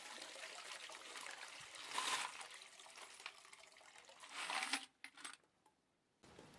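Dirty, soapy wash water pouring from a rotary tumbler drum into a bucket of foamy water, with the wet 5.56 brass cartridge cases inside the drum clinking as it is tipped. The pour swells twice and stops about five seconds in, followed by a few clicks.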